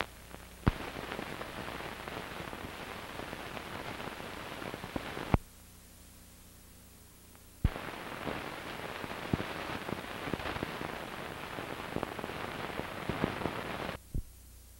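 Crackling static with scattered clicks and pops from the blank run-out of an old recording. About halfway through, a loud pop gives way to a couple of seconds of low hum before another pop brings the crackle back. A brief hum follows near the end, then it cuts off.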